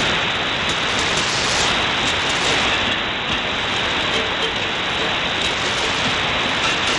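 Steady shortwave static hiss from an AM broadcast signal on 5995 kHz, received on an SDRplay RSPdx software-defined radio with a fair signal; the station's audio is faint beneath the noise.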